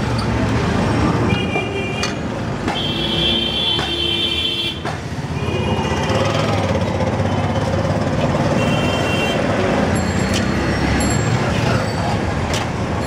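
Roadside traffic noise, a steady rumble, with several short high-pitched tones sounding in the first ten seconds or so and a few clicks.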